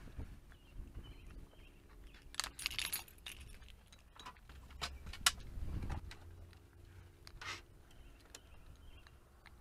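Someone moving about in a car's cabin, with rustling and scattered clicks of things being handled, and a jingle of keys between about two and three seconds in.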